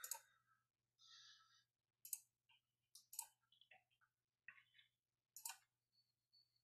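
Near silence broken by a handful of faint computer mouse clicks, spaced about a second apart, as a screen share is started on a computer.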